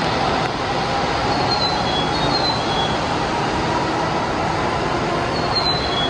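N700S Shinkansen train running with a steady, even rush of noise as it pulls out of the station. A few faint, short, high-pitched squeaks sound over it, clustered near the end.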